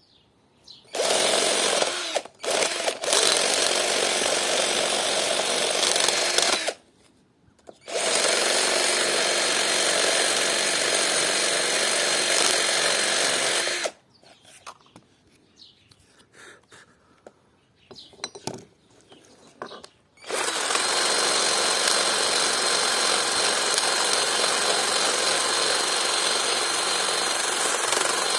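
Electric drill fitted with a homemade sanding disc, running in three long bursts with pauses between them. The longest pause comes about halfway through, with a few small clicks in it.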